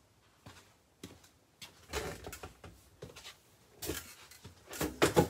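A cardboard trading-card box being handled close to the microphone: a series of irregular rustles, scrapes and light knocks as it is picked up and turned over, loudest near the end.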